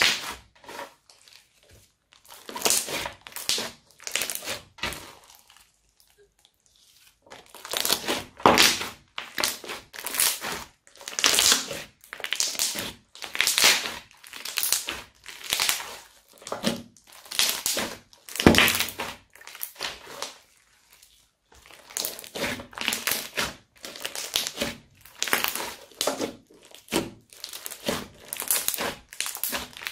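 Beaded crunchy slime being kneaded and squeezed by hand, crunching and crackling in short bursts about once a second, with a few brief pauses.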